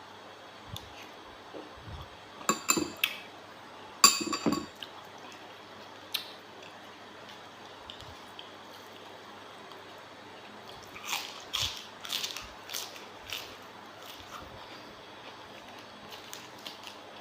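Wet eating sounds from a mouthful of raw seafood: squishy chewing and smacking with a few sharp clinks of dishes or cutlery, in short bursts about two and four seconds in and again in the second half.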